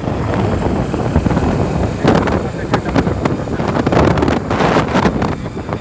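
Wind buffeting the microphone of a phone carried on a moving motorcycle, in irregular gusts over engine and road noise.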